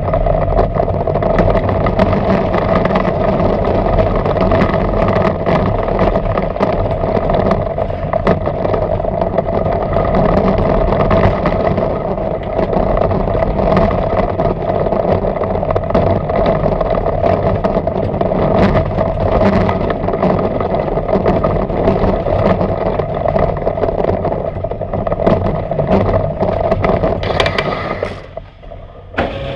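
PAX mine-train roller coaster running on its steel track: a steady loud rumble and rattle of the train's wheels, with frequent small clacks. Near the end the noise drops away for a moment as the train rolls into the station, then picks up again.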